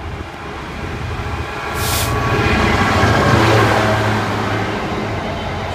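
Class 66 diesel locomotive 66098 hauling a freight train past a station platform, its EMD two-stroke diesel engine drone growing louder as it approaches. It is loudest about three seconds in and eases slightly as the locomotive passes.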